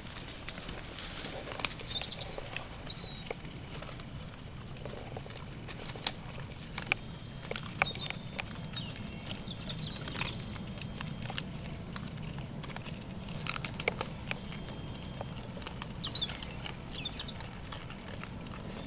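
Young wild boar foraging and chewing bait, with scattered sharp snaps and crunches and a few short high chirps over a low steady hum.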